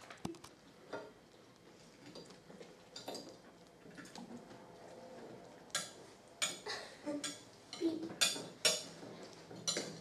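A series of sharp clicks and light clinks. A few faint ones come at first, then about eight louder ones in the last four seconds.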